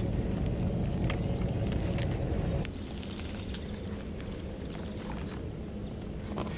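A steady low rumble with a faint hum, dropping in level about two and a half seconds in, with scattered light crackles of dry leaf litter being handled.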